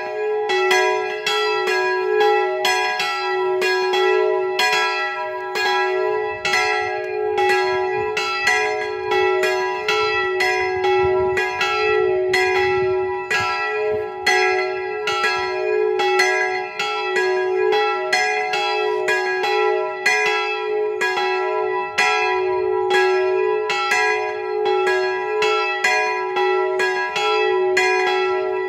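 Church bells in an open bell tower, swung and ringing together, their clapper strikes following close on each other in an uneven overlapping run, each stroke leaving a long ringing tone. The bells are thought to be cast by the Jan Felczyński foundry, the bells tuned to about e'' and g-sharp''.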